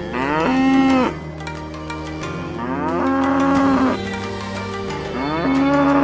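Cows mooing three times, each moo rising in pitch and then held for about a second, over background music.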